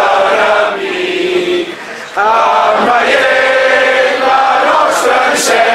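A crowd of protesters chanting a slogan in unison, with a short break about two seconds in before the next phrase.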